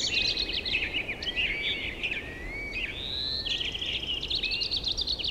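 Several songbirds chirping and trilling over one another, many short calls and quick sliding notes at once, over a steady outdoor background hiss.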